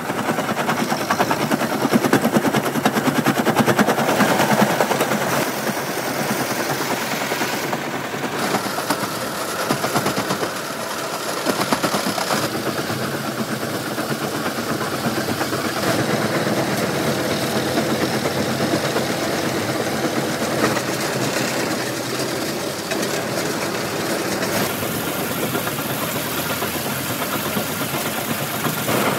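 Stone crusher machine running, with a fast, steady rattling knock. The sound changes abruptly a few times.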